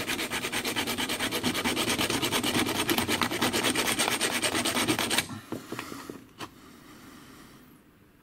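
Rapid back-and-forth strokes of a hand cutting tool working through a metal lock cylinder. The strokes stop abruptly about five seconds in, leaving a few light clicks.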